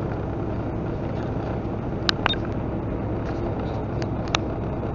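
Steady engine and road rumble inside a semi-truck cab cruising at highway speed, with a few short clicks about two seconds in and again near the end.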